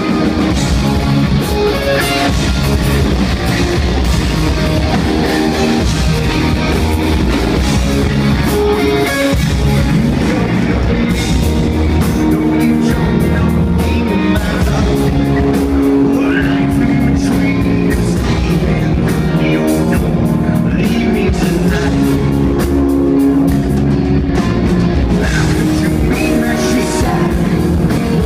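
Live rock band playing loud and steady: electric guitar, bass guitar and drum kit, with a male singer on a microphone.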